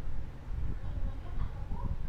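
Low rumbling and soft knocks, with a faint short chirp from a two-week-old budgie near the end.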